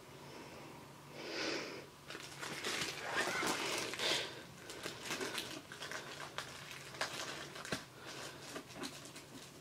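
Rustling and crinkling of plastic wrap against a duvet as a shrink-wrapped canvas tube is handled, loudest early on, then lighter scattered clicks and taps.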